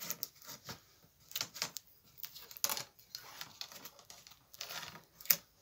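Adhesive tape crackling and peeling in short, irregular bursts as it is wrapped several times around two willow rods to join them.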